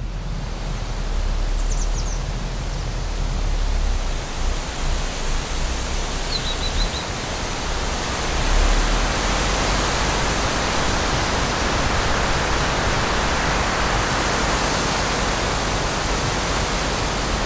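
Steady rushing noise with an unsteady low rumble, like wind buffeting the microphone. Two quick runs of short high chirps come through, about two seconds in and about six seconds in.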